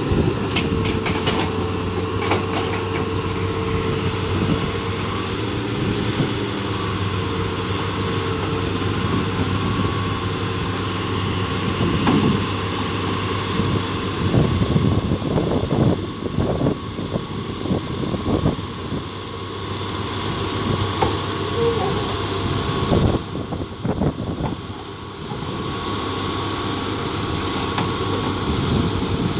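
Hydraulic crawler excavator's diesel engine running under load with a steady hydraulic whine, while its steel tracks and bucket clank and knock against the trailer ramps and deck as it struggles up onto a lowboy trailer; the knocks bunch together in the middle.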